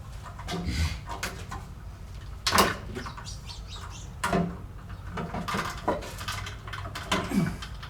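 A few sharp knocks and clatter from plumbing work, with a bird giving short, low calls that fall in pitch near the end.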